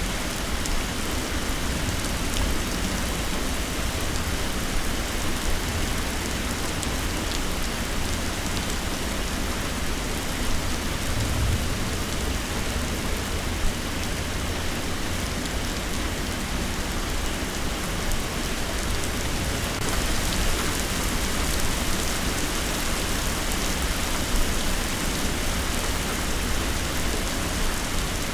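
Heavy rain pouring steadily, with a low rumble underneath.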